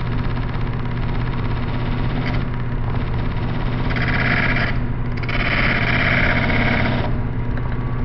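Disc sander motor running with a steady hum while a drill bit held in a wooden jig is pressed against the spinning sanding disc twice, about four and five seconds in. Each contact gives a hissing grind, the second lasting nearly two seconds, as the bit's cutting edges are ground sharp.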